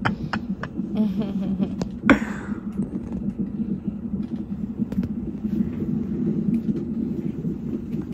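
Fetal heart monitor's Doppler speaker playing the baby's heartbeat as a steady, rapid whooshing pulse. A sharp knock comes about two seconds in.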